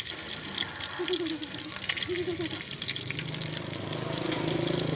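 Tilapia frying in a pan of oil: a steady sizzle with fine crackling. A low hum comes in about three seconds in and grows louder.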